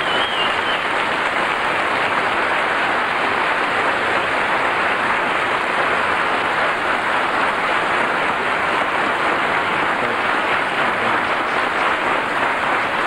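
Studio audience applauding: dense, steady clapping.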